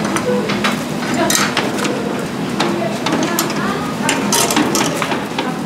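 Metal clanks and clicks of a wire fish-grilling basket and steel tongs knocking against a ceramic platter as the basket is opened and lifted off a grilled fish, with indistinct kitchen voices behind.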